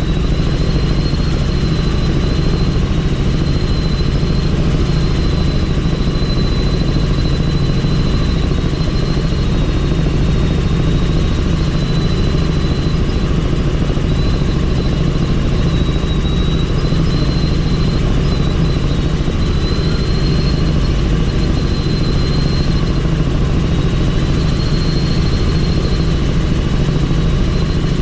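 Helicopter in flight, heard from on board: a steady, loud drone of rotor and engine with a thin high whine that wavers slightly in pitch.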